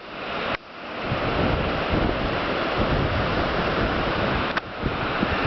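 Strong gusting mountain wind rushing and buffeting the microphone. It drops away sharply right at the start, then builds back up within about a second and blows steadily.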